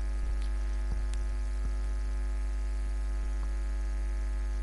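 Steady low electrical mains hum picked up in the recording, with a few faint clicks.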